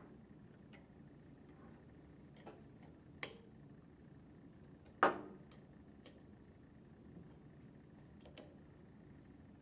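Sharp metal clicks of a wrench on the head cap screws of an internal gear pump as they are tightened, half a dozen at uneven spacing, the loudest about five seconds in.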